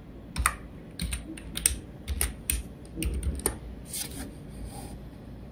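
Typing on a computer keyboard: a dozen or so separate key clicks at an uneven pace, stopping shortly before the end.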